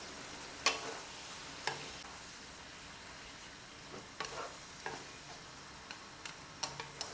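Vegetables sizzling steadily in a nonstick wok while being stir-fried, with a few sharp, irregular taps of a wooden spatula against the pan.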